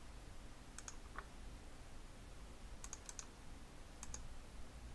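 Computer mouse clicking: a single click about a second in, a quick run of three clicks around three seconds, and one more about four seconds in.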